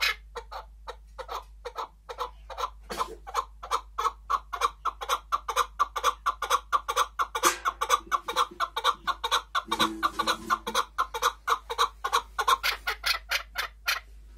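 Chukar partridge calling: a long unbroken run of short repeated calls, quickening from about three to about five a second in the middle.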